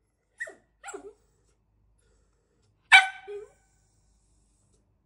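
A small dog barking at its own reflection in a mirror: two short, soft barks, then one loud, sharp bark about three seconds in.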